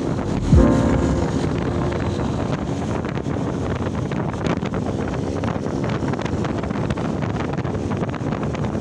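Wind buffeting the microphone on a moving vehicle, over steady road and traffic noise. A short pitched sound comes about half a second in.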